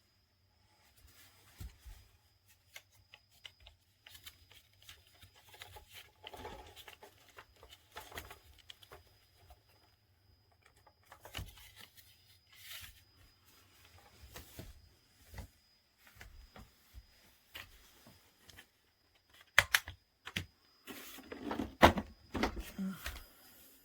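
Handling noises: scattered clicks, taps and rustling, with a few sharp loud clicks and a clatter near the end.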